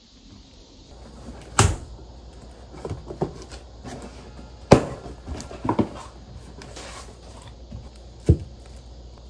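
Cardboard delivery boxes being set down and opened on a stone countertop: a few sharp knocks and thuds, the loudest about halfway through, with rustling and scraping of cardboard flaps and plastic wrap in between.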